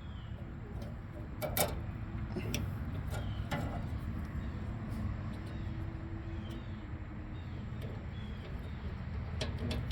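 A few sharp metal clicks and taps as a retaining pin in a fryer's pilot-knob handle is spread open with a tool, over a steady low hum.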